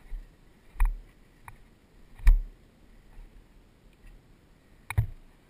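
A handful of separate sharp knocks and clicks from a rider shifting on a stopped mountain bike, picked up by a helmet-mounted camera. The loudest comes about two seconds in and another near the end.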